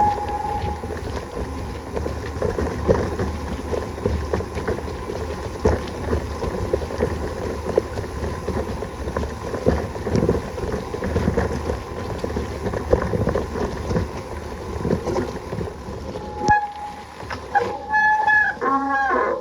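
Bicycle ride over rough ground, with wind buffeting the microphone and a steady rattle of small knocks. There are a few short high squeals near the end.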